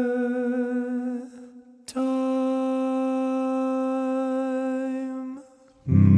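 A cappella male voice humming a long held note that fades away about a second and a half in. A second steady held note starts about two seconds in and stops about five and a half seconds in. Near the end, lower voices enter loudly with a full chord.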